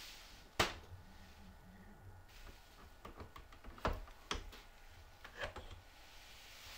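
Scattered clicks and knocks: one sharp click about half a second in, then a run of lighter ticks with a few stronger knocks through the middle, over a faint hiss.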